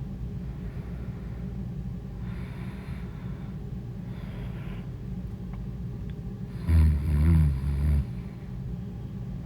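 A woman snoring in her sleep: soft breaths in and out, then one loud snore about seven seconds in that lasts just over a second, over a steady low rumble.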